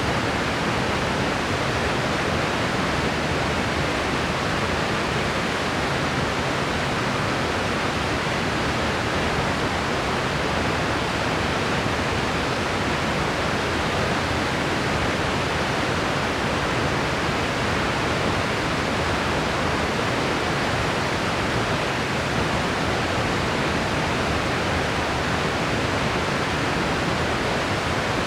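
Steady white noise: an even, unchanging hiss with no breaks or separate sounds in it.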